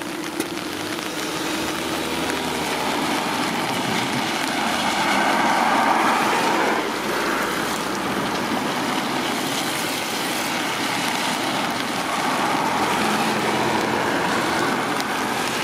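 Cars driving across the crossing on a wet road, their tyres hissing on the wet surface as they pass, loudest around the middle and again near the end. A low steady hum fades out in the first couple of seconds.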